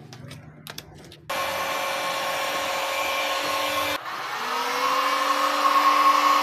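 Electric heat gun blowing hot air with a steady motor hum, starting abruptly about a second in. About four seconds in it dips, then its pitch rises as the motor speeds up again. It is being used to soften smoked tint film so the film conforms to a motorcycle headlight lens.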